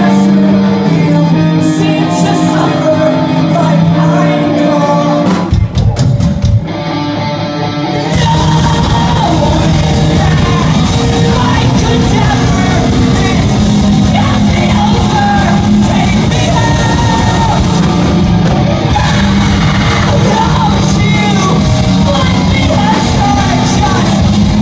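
Live rock band playing loud in a club, with singing: held chords for the first five seconds, a short break with a few sharp hits, then the full band with drums from about eight seconds in.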